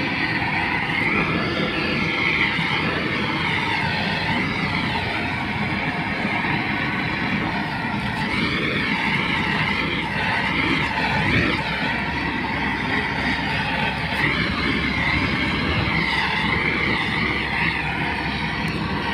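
Gas blowtorch flame burning steadily while heat-shrinking the sleeves of a high-voltage cable end-termination kit: a continuous rushing noise with a wavering whistle, cutting off abruptly just after the end.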